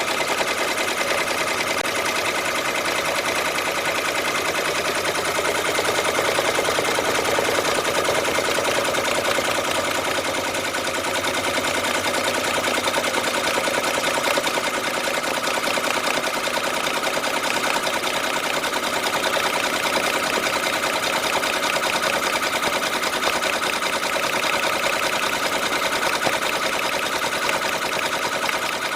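Brother computerized embroidery machine stitching continuously at speed: a rapid, steady clatter of needle strokes.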